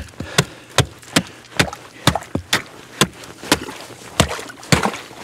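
Hatchet chopping into frozen pond ice: a steady run of sharp strikes, about two a second.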